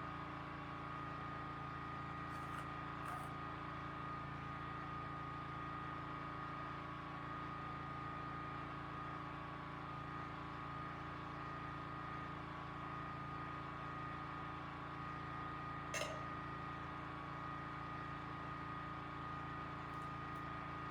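Backup generator running steadily in the background: a constant hum holding several steady tones. It is broken only by a few faint clicks, the clearest about 16 seconds in.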